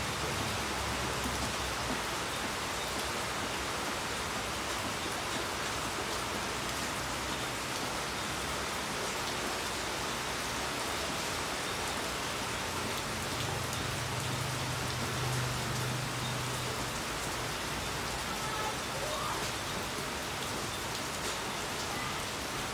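Steady rain falling on paving and roofs, an even, unbroken hiss. A faint low drone joins it for a few seconds past the middle.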